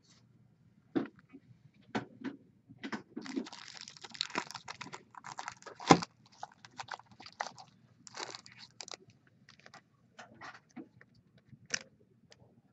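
Trading-card packaging being handled and opened: crinkling wrapper and cardboard with scattered clicks and taps, busiest in the middle with one sharp snap about six seconds in.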